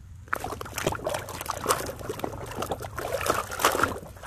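Muddy water splashing and sloshing in a basin as a hand swishes a plastic toy truck through it, starting about a third of a second in, in irregular splashes.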